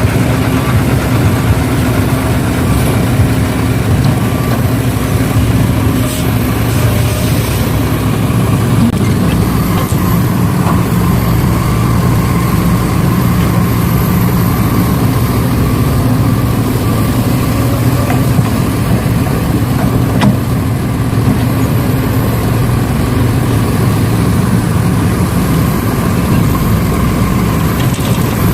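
Heavy engine running steadily at a low, even speed, like an idle, with no change in pitch.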